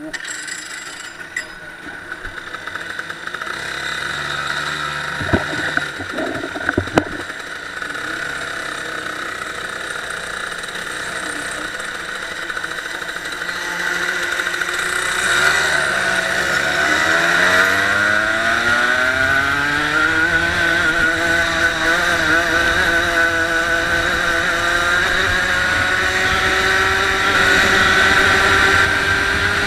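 A few sharp knocks, then a racing kart's Rotax Max two-stroke engine revving up: its pitch rises from about halfway in and holds steady at high revs near the end as the kart accelerates away.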